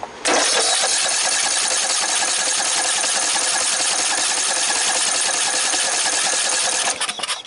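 14.5 hp Briggs & Stratton lawn tractor engine cranked over on its starter with the choke on for about six and a half seconds, stopping a little before the end. The cranking is a test of whether the engine draws fuel, and no fuel flows: the owner suspects a collapsed fuel line.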